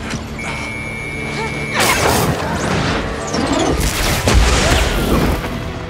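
Action-film sound effects of machinery shorting out and exploding. A high steady electronic whine breaks off in a sudden crash about two seconds in, then crackling sparks and a deep boom about four seconds in.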